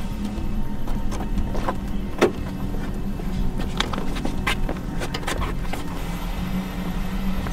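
Clicks and knocks of someone rummaging through a car's interior, over a steady low hum. The loudest knock comes a little over two seconds in.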